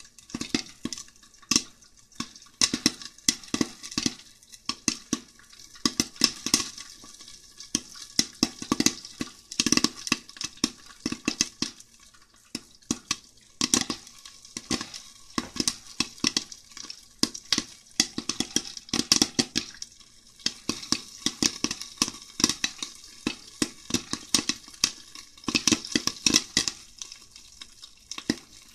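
Popcorn kernels popping in a lidded pan on the stove: a rapid, irregular stream of sharp pops that thins out briefly a few times.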